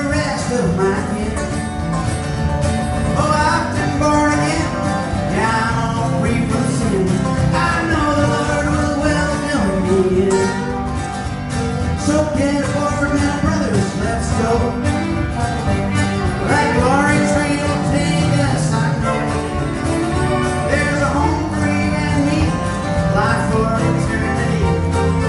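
Live country-gospel song: strummed acoustic guitar with a band, and a lead melody carried over it.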